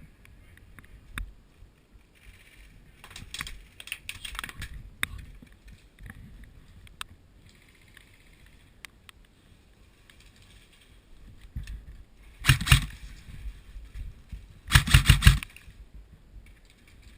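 Airsoft electric rifle firing two short bursts of rapid clicking shots, the second about two seconds after the first, near the end. Scattered clicks and rattles come before them.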